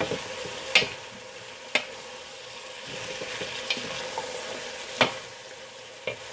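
Sliced beets, onions and carrots frying in oil in a pot with a steady sizzle while a wooden spoon stirs them. A few sharp knocks of the spoon against the pot.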